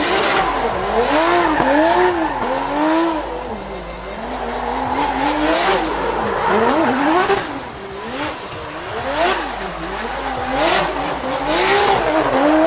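Nissan Silvia S15 drift car drifting: the engine revs rise and fall again and again as the throttle is worked, over tyres squealing and skidding.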